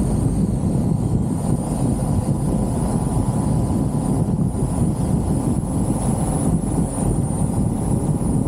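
Wind buffeting the microphone over the engine and road noise of an open-top Jeep under way: a steady low rumble with no breaks. A thin, steady high-pitched whine sits above it.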